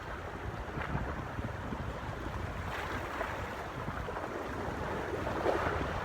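Moving water washing steadily, with wind rumbling on the microphone.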